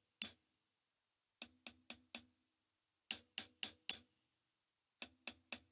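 Closed hi-hat cymbals struck on the edge with the shoulder of a drumstick. Short, sharp strokes come in groups of about four, a harder and brighter sound than playing with the stick tip on the top.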